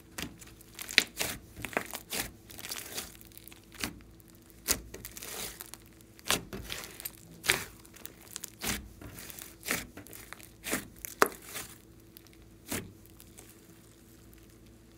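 Thick glossy slime being squeezed, folded and stretched by hand: sticky squelches broken by irregular sharp pops and crackles as trapped air bursts, a loud one about every second.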